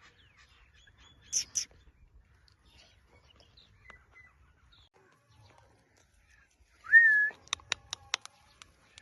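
Pet Indian ringneck parakeet calling: two short, high squawks about a second and a half in, then after a pause a loud rising whistle, followed at once by a quick run of about six sharp clicks.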